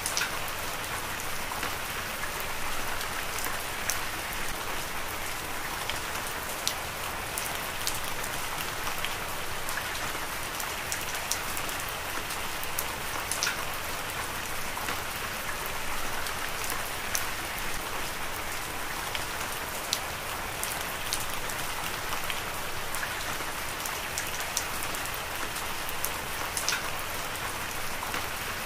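Heavy rain falling steadily: a dense, even hiss of rain, with scattered sharp taps of individual drops striking a nearby surface.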